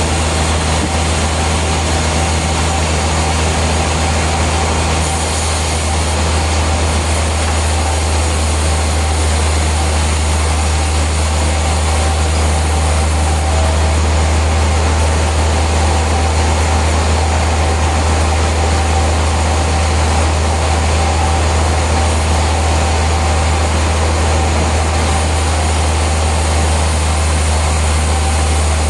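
Heavy sawmill machinery running with a steady low drone; a few lower tones drop out about five seconds in.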